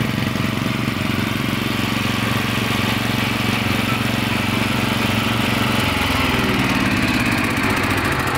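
Subaru EH30 9.0 hp single-cylinder OHV engine on a Mikasa MCD-216V walk-behind concrete saw running steadily at low speed, then revving up about six seconds in as the throttle is opened.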